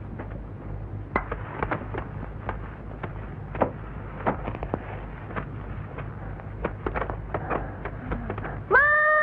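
Scattered short, sharp chirps or clicks over a steady low hum. Near the end comes a loud animal call whose pitch rises and then falls.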